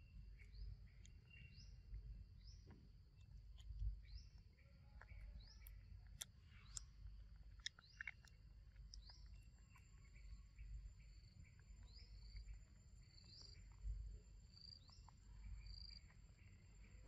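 Faint ambience: a steady high-pitched insect drone with short rising chirps about once a second, and a few faint clicks.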